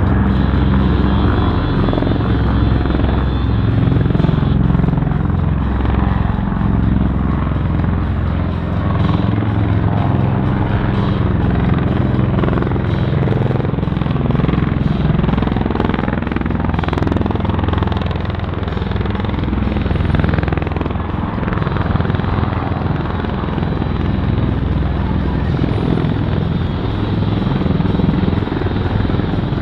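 Military rotorcraft running, a steady deep rotor and engine drone, with music playing underneath.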